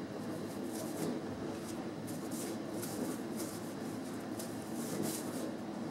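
1988 Fleer baseball cards being flipped through by hand, the cardboard cards sliding and rustling against one another in a series of soft, short swishes. A steady low hum runs underneath.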